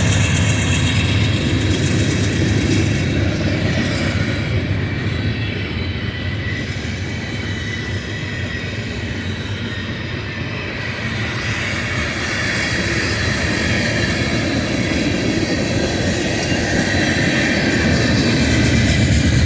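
A local freight train led by a GE Dash 9 diesel locomotive rolling past: a steady low rumble of wheels on rail, with a faint high wheel squeal at times. It eases off slightly midway and builds again toward the end.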